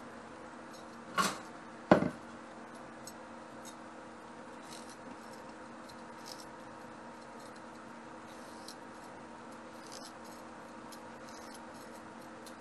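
Kitchen handling sounds: two sharp knocks a little under a second apart, then faint scattered clicks and taps over a steady hum.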